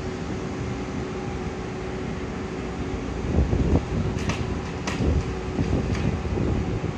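Blue railway baggage cars rolling slowly past behind an electric locomotive, with a steady running noise and a faint steady hum. Several sharp metallic clanks and low thumps come from the wheels and couplings in the second half.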